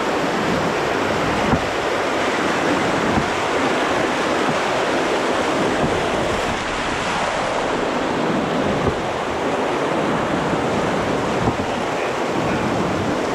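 Loud, steady rush of a white-water rapid around an open canoe, with a few short knocks scattered through it.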